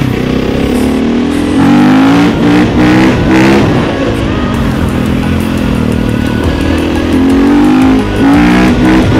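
KTM 450 EXC's single-cylinder four-stroke engine under way, rising in pitch in short repeated surges as the throttle is worked, settling lower for a few seconds mid-way, then surging upward again near the end.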